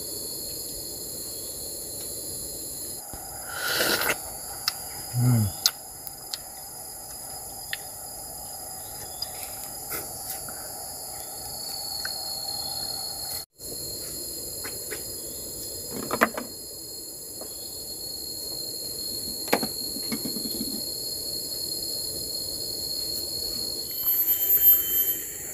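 Forest ambience: a steady high-pitched chorus of insects, with scattered small clicks and knocks and a few brief louder sounds about four to five seconds in and again around sixteen seconds in.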